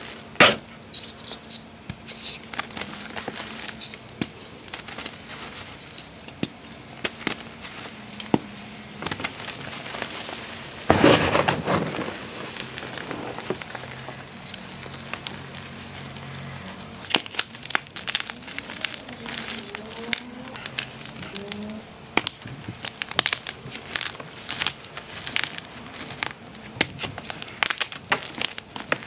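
Blocks of gym chalk crushed and crumbled by hand over a pile of chalk chunks and powder: a run of crisp crunches and crackles, with a loud crunch about eleven seconds in and a busier run of crackles in the second half. A dog pants close to the microphone.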